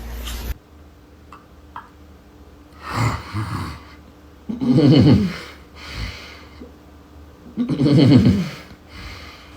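A person snoring: a softer snore followed by two loud ones, roughly three seconds apart, with quiet breathing between.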